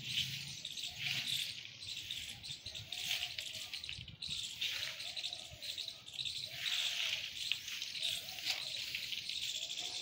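Dense insect chorus: a high buzzing that swells and fades every second or two, with a few short, lower bird calls about halfway through.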